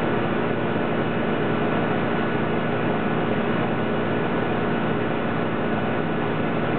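A steady, even hiss and hum with several constant tones under it.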